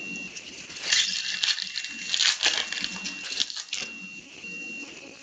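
Foil wrapper of a trading-card pack crinkling and being torn open by hand, a run of short crackly rustles and clicks in the middle of the stretch.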